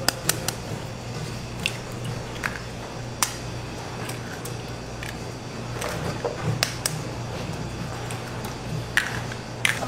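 Eggs being cracked one after another against the rim of a stainless steel pan: about ten sharp cracks at uneven intervals, over a steady low hum.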